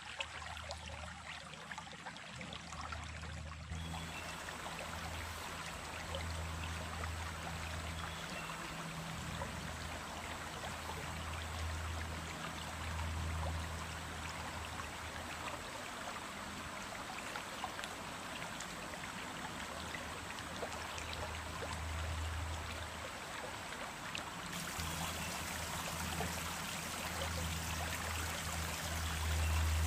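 Small stream running steadily, a continuous babbling trickle of water with many tiny splashes, over a low rumble that swells and fades.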